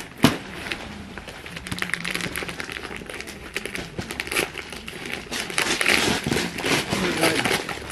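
Gift wrapping crinkling and crumpling as a present is unwrapped, with a sharp click just after the start.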